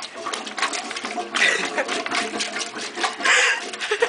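A rubber plunger being pumped in a clogged toilet bowl, splashing and sloshing the water in short strokes, with a couple of bursts of laughter.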